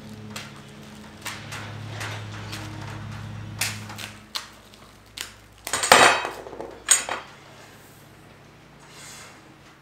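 Metal parts clinking and knocking on a wooden tabletop: small hardware and aluminium extrusion rails of an X-Carve CNC kit being handled and set down. A series of light clicks, with the loudest clatter and a brief metallic ring about six seconds in and another knock a second later. A low steady hum runs under the first four seconds.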